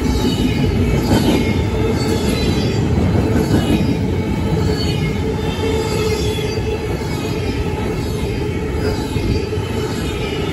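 Double-stack container train rolling past close by: a steady loud rumble of freight car wheels on the rail, with a faint high-pitched wheel squeal over it.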